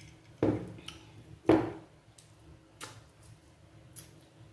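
Two loud, sudden knocks about a second apart, then a few faint clicks.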